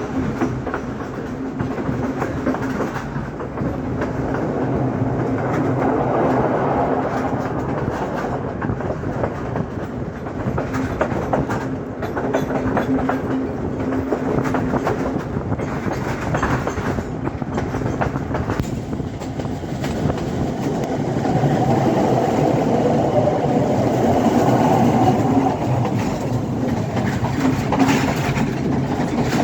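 Passenger express train running along the track, its wheels clattering over the rail joints over a steady low hum of the running train.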